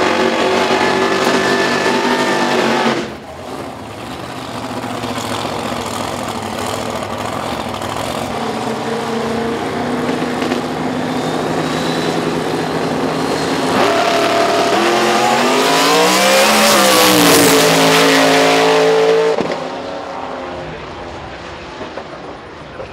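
Drag race cars running at full throttle. The first is loud and cuts off sharply about three seconds in. A second engine then builds, swings up and down in pitch at its loudest, and drops off sharply near the end.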